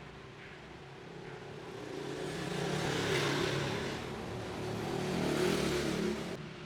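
Hair dryer running: a motor hum under a rush of blown air that swells and eases twice.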